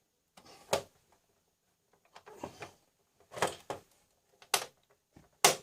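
Plastic clips of a Toshiba LX830 all-in-one PC's case snapping loose one after another as the clipped cover is prised off around its edge. There are about four sharp snaps, with scraping and handling of plastic between them.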